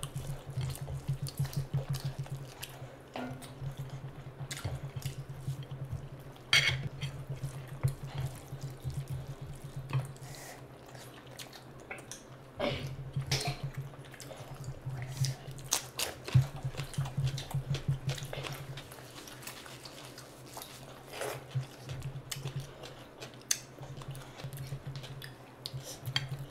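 Close-miked eating sounds: people chewing mouthfuls of curry and rice in a rapid rhythm, with wet squelches and sharp mouth clicks throughout as they eat with their hands.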